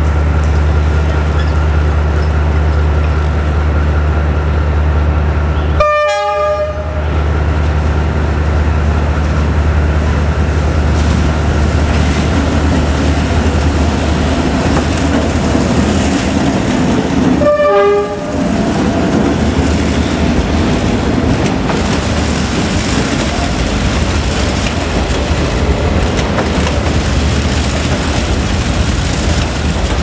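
Diesel locomotive of a passenger train running slowly past with a steady low engine drone, sounding two short horn toots, about six seconds in and again about eighteen seconds in. In the second half the engine drone fades and the coaches roll by with wheel and rail noise.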